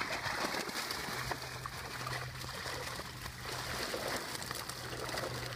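Water streaming and trickling out of a fishing keepnet as it is hauled up out of the canal, with a low steady hum under it from about a second in.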